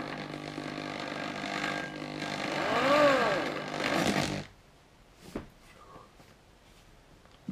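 Power drill boring a hole through a polycarbonate (Lexan) canopy sheet, the motor's whine rising and falling in pitch twice. It stops about four and a half seconds in, leaving a few faint clicks.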